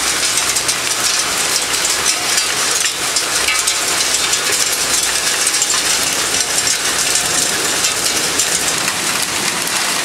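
Heavy hail clattering on perforated metal stair treads, a dense steady rattle of countless small impacts mixed with pouring rain.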